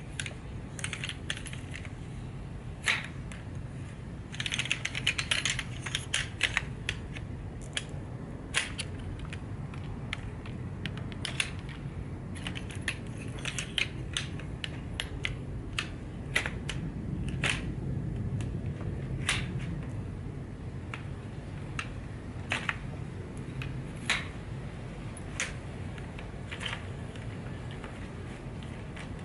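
Aluminium poles of a folding camping chair frame clicking and clacking as the sections are unfolded and snapped into place. Irregular sharp clicks throughout, with a burst of rattling about five seconds in, over a steady low hum.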